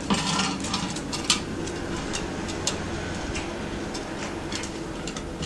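Dog pyramid toy being knocked about: irregular light clicks and clatters, busiest at the start, with a few sharper single knocks.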